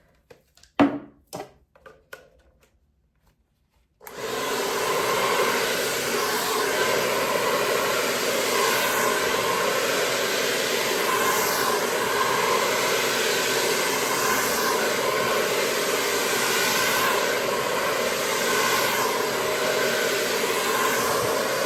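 A few clicks and knocks as a nozzle is fitted to a CONFU ionic hair dryer. The dryer then switches on about four seconds in and runs with a steady blowing whir.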